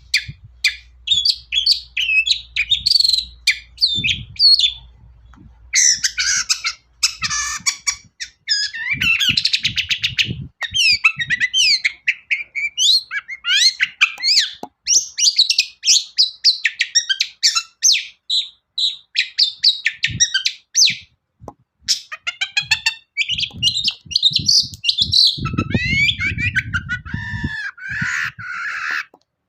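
Long-tailed shrike (cendet) singing a loud, fast, unbroken run of varied chattering notes and quick high whistled glides, with short pauses about five seconds in and again past twenty seconds.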